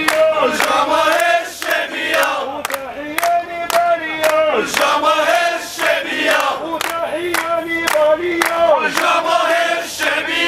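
Protest crowd chanting slogans in unison, led by a man with a megaphone, over sharp steady beats about twice a second.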